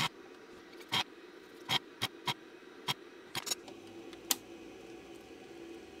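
Duratool spring-loaded desoldering pump being cocked and fired to suck molten solder off the old power switch's joints: a quick run of about a dozen sharp snaps over the first four and a half seconds, then only a faint steady hum.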